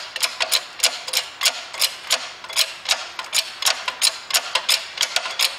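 Hand-pumped hydraulic shop press being worked, its pump handle clicking in a steady rhythm of about four clicks a second while it compresses the spring on a gear shaft.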